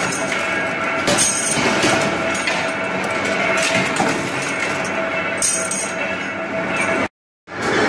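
Steady running noise of a bending press that forms steel rod into U-bolts, with a hum and a few short metallic clatters as rods are fed in. The sound cuts out abruptly for a moment near the end.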